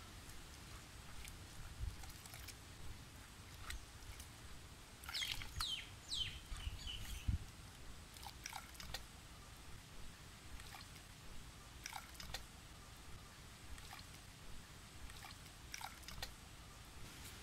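Hands squeezing wet grated coconut in a clay bowl to press out coconut milk: faint wet squishing, with milk dripping back into the bowl. A bird calls with a few quick falling notes about five to seven seconds in.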